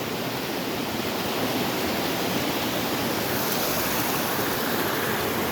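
Steady rushing of a fast river over rocks and small falls, an even wash of water noise with no breaks.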